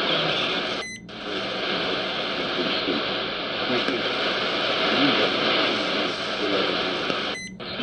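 XHDATA D-109 shortwave receiver playing a weak international broadcast station under heavy static hiss, with a faint voice just audible beneath the noise. The audio mutes briefly about a second in and again near the end as the receiver steps to the next scanned frequency.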